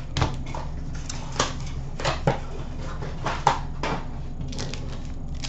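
Scattered rustles and light clicks of a cardboard Upper Deck SPx hockey box and its foil card pack being handled and set down on a glass counter, over a steady low hum.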